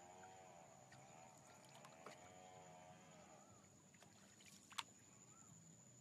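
Faint sounds of a wooden boat being paddled on still water, with a wavering hum in the first three seconds and a single sharp knock a little before the end.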